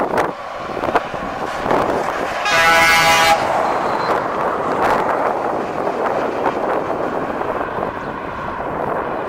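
A truck's horn sounds one blast of about a second, roughly two and a half seconds in, over the steady engine and tyre noise of a lorry passing close by.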